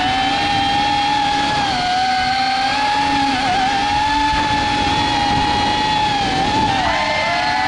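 Cinewhoop FPV quadcopter's brushless motors and ducted propellers whining at a steady high pitch. The pitch wavers with the throttle and dips briefly about three and a half seconds in, then more deeply near the end before picking back up.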